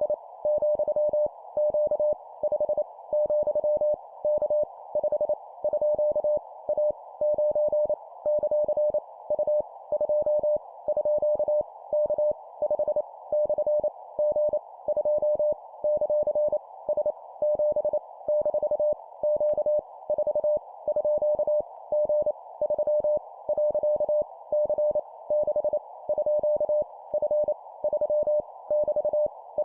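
Morse code (CW) at 25 words per minute: a single tone near 600 Hz keyed rapidly on and off in dots and dashes, spelling random letters, numbers and punctuation, with short gaps between characters. It sits over a steady narrow band of hiss, like a receiver's CW filter.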